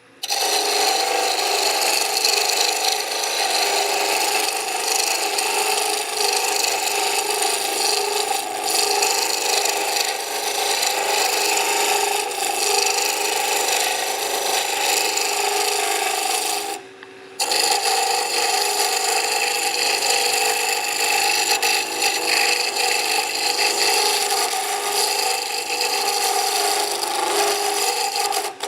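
Wood lathe spinning a spindle blank while a turning chisel cuts it down to a slow taper, giving a steady cutting noise. The cut stops for about half a second about two-thirds of the way through.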